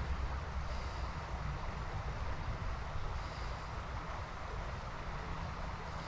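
Creek water running steadily, with wind rumbling on the microphone.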